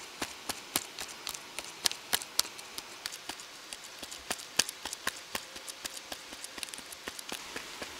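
Irregular light clicks and ticks, several a second and uneven in strength, over a faint steady hiss.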